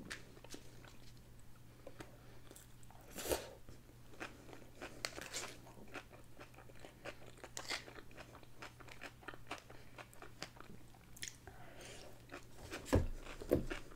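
Close-miked eating: chewing and crunching of coleslaw, with many small clicks of a fork and mouth. A thump near the end.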